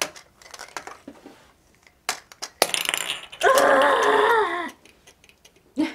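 Hard plastic toy capsules clicking and clattering as they are handled, pulled apart and set down on a table. About three and a half seconds in, a wavering squeal lasting about a second is the loudest sound.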